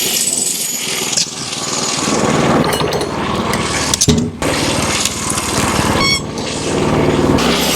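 Wood-Mizer LX25 band sawmill running, its engine and band blade working through a hemlock beam. The sound shifts about a second in, and there is a short sharp knock near the middle.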